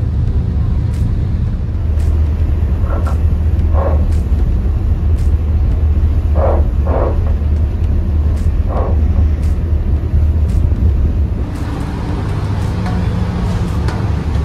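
Steady low engine rumble, with a few short mid-pitched sounds over it around the middle.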